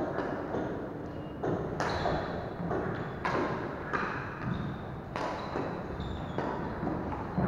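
Doubles badminton rally: rackets striking the shuttlecock in several sharp hits about a second apart, with footsteps on the wooden court floor between them.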